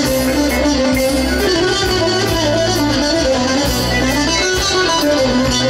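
A live Greek laiko band plays an instrumental passage through the PA: a bouzouki picks out a winding melody over guitar, bass and drums.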